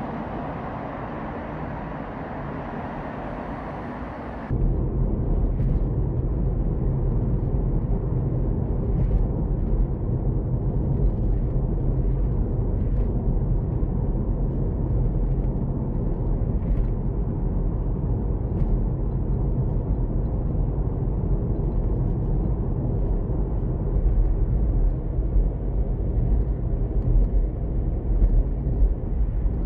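A steady outdoor hiss, then a sudden cut about four and a half seconds in to the steady low rumble of road and engine noise inside a car cabin at expressway speed.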